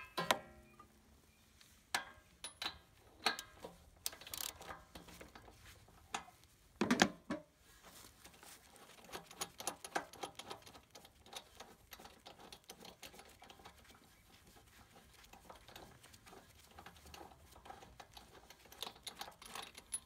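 Ratchet wrench and socket loosening the spark plug of a small petrol engine: scattered metal clicks and knocks as the tool is fitted, a louder clatter about seven seconds in, then a run of light ratchet clicking.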